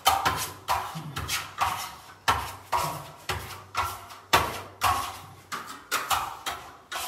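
Steel trowel scraping over Venetian plaster (lime putty) in quick, pressed strokes, about two a second, each sharp at the start and fading: the plaster being burnished to a polish by trowel pressure.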